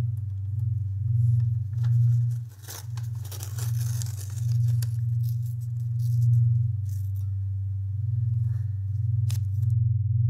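A low, pulsing synth drone from the film's score. About three seconds in, paper rustles and tears for a couple of seconds, and a few sharp clicks follow later.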